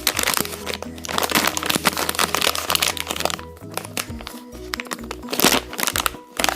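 A prize bag's wrapping crinkling and crackling as it is handled and opened, in dense bursts that are heaviest in the first half and return near the end, over background music.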